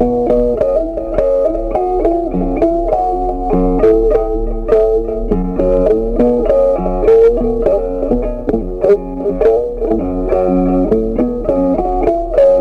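Background music led by plucked guitar: a melody of short picked notes over a lower bass line, in a steady rhythm.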